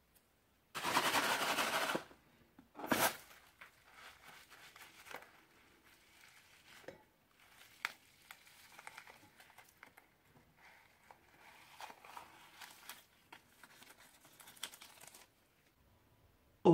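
Handling and cutting a bead-filled balloon over a bowl of glue: scissors snipping the rubber, crinkling and rustling, and small beads scattering and crackling into the bowl. The loudest sound is a rushing noise about a second long near the start, with a sharp burst just after it.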